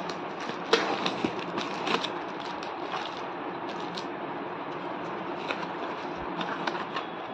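Cardboard shipping box being opened by hand: tape and label peeled and torn, flaps crinkling and snapping, in a run of short sharp crackles and clicks over a steady background noise. The sharpest snaps come about a second in and again about two seconds in.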